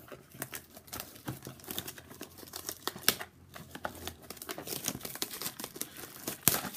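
Plastic wrap crinkling and crackling as it is handled and torn off a trading card blaster box, with a continuous run of small snaps and clicks.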